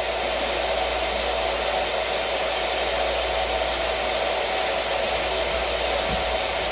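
Weather radio receiver putting out a steady hiss of static with a faint hum: dead air from the faltering WXJ73 NOAA Weather Radio station.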